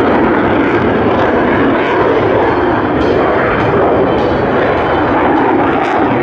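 Jet noise from a MiG-35 fighter's twin RD-33MK afterburning turbofans as it manoeuvres in flight, loud and steady with no breaks.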